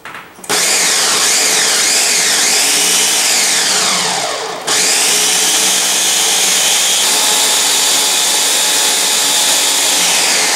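Ninja Mega Kitchen System 1500-watt (2 hp) blender running on a jar of ice, frozen cucumbers and chopped vegetables, its motor pitch rising and falling as the blades catch the frozen chunks. It drops off briefly about four seconds in, then comes back to full speed.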